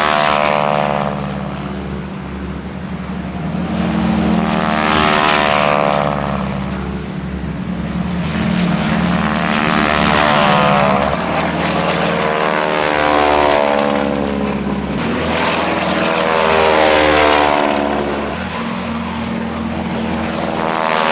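Propeller aircraft engines droning steadily. The sound swells and fades several times, with a sweeping, phasing quality.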